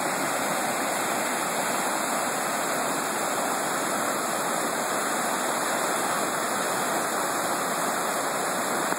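River rapids: fast, high water rushing over rocks in a steady, unbroken roar.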